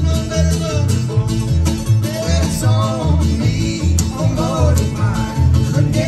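Live bluegrass string band playing: mandolin, fiddle, acoustic guitar and upright bass, with a steady bass line. Two men sing together partway through.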